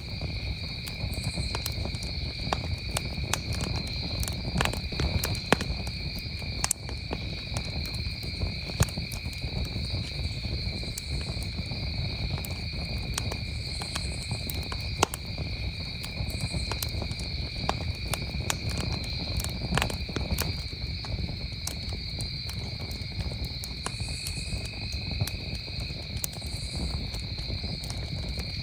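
Campfire crackling with scattered sharp pops, over a steady, unbroken chorus of crickets.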